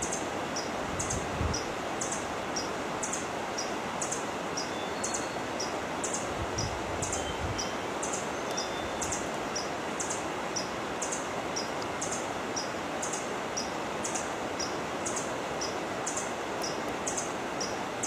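Forest ambience: a steady hiss with a regular series of high, thin chirps about twice a second, alternating a higher and a slightly lower note.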